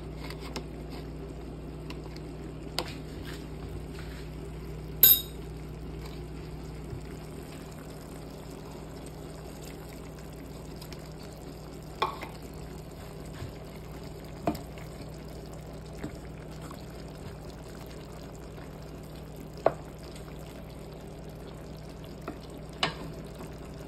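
Chop suey vegetables simmering in sauce in a pan: a steady low bubbling, with a few short sharp clicks now and then, the loudest about five seconds in.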